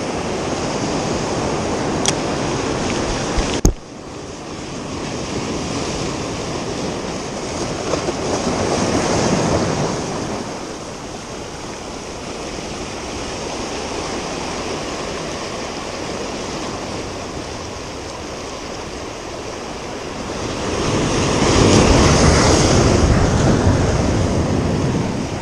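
Strong surf breaking and washing over the boulders of a rocky shore, swelling twice and loudest near the end. A sharp click about three and a half seconds in.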